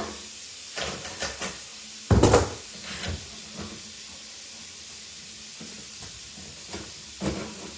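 Scattered knocks and clatters of hands working inside a bathroom sink's vanity cabinet at the water supply shut-off, the loudest about two seconds in.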